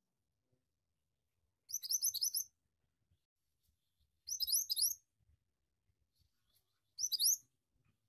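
Minivet (mantenan) singing: three short bursts of rapid, high, upward-sweeping chirps, each burst lasting under a second, with pauses of about two seconds between them.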